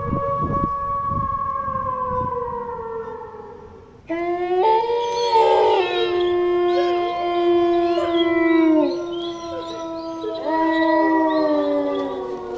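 Dogs howling. One long howl slowly falls in pitch. From about four seconds in several howls overlap at different pitches, and another howl starts near the end.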